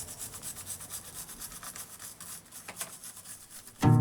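Fast, even scrubbing strokes, about nine a second, with a couple of sharper clicks in the middle and a brief louder pitched sound right at the end.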